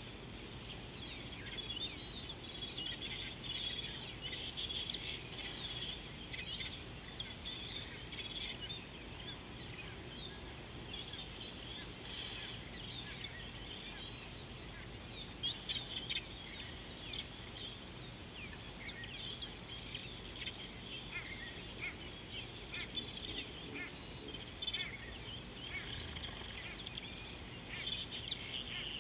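A chorus of many wild birds chirping and calling at once, a dense run of short high notes and whistles that never stops, over a low steady background hum of open bush.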